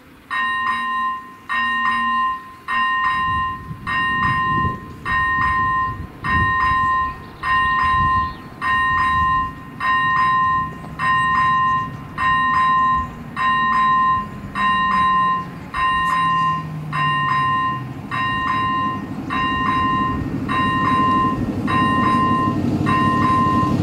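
Electronic level-crossing bell (ZV-01) switching on and ringing an even electronic ding about once a second as the crossing warning activates. A low rumble builds underneath and grows louder toward the end: an approaching train.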